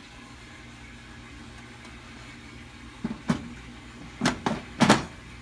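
A steady low hum, then a handful of short knocks and clicks in the last two and a half seconds.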